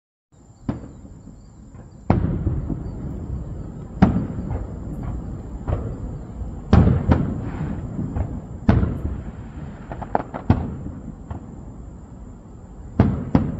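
Aerial firework shells bursting: about a dozen sharp bangs at uneven intervals, several in quick pairs, each trailing off in a low rumbling echo.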